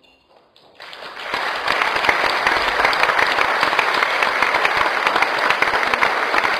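Audience applause breaking out about a second in, after a short hush at the end of the brass band's piece, and quickly building to steady clapping.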